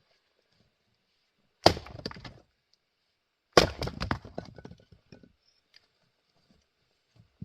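Two axe strikes splitting grand fir, about two seconds apart. Each is a sharp hit followed by a second or so of crackling and clatter as the wood breaks apart.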